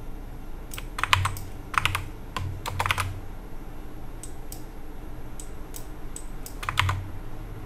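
Typing on a computer keyboard: quick runs of keystrokes in short bursts, with pauses between the bursts.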